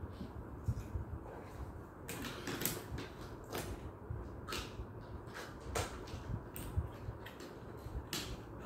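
Irregular small clicks and rustling as die-cast Hot Wheels toy cars are handled and set down on a whiteboard.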